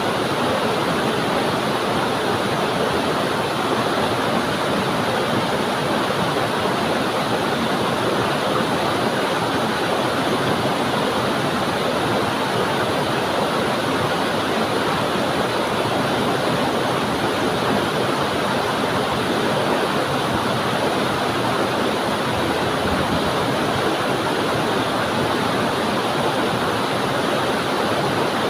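Waterfall: water pouring onto rocks and flowing on, a steady, unchanging rush.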